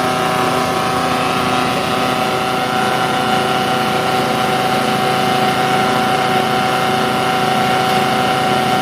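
Homemade chaff cutter running steadily, a constant high whine over the steady hum of its drive.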